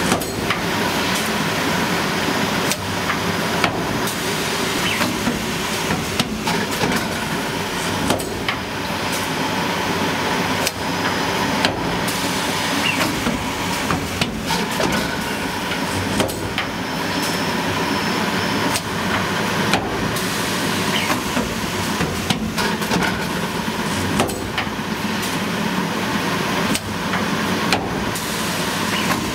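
Posimatic EV5000 twin-head filling machine running: a steady mechanical noise with a faint steady tone, broken by frequent irregular sharp clicks and knocks as the nozzles work and the containers move along the conveyor.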